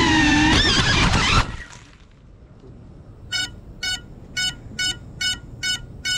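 GEPRC CineLog35 cinewhoop's motors whining with a wavering pitch, cutting off abruptly about a second and a half in as the quad crashes into bamboo stalks. After a pause its buzzer beeps seven times, about two beeps a second, as the downed quad lies in the bamboo.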